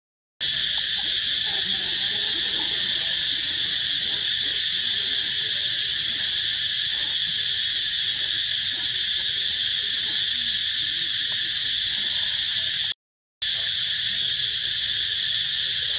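Steady high-pitched insect chorus, dropping out abruptly for a moment at the very start and again about thirteen seconds in.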